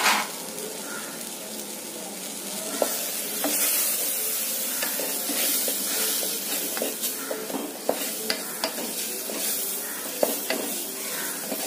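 Onion-tomato masala with spice powders sizzling in oil in an aluminium pressure cooker, stirred and scraped with a wooden spatula. Irregular knocks and scrapes of the spatula against the pot sound over a steady sizzle.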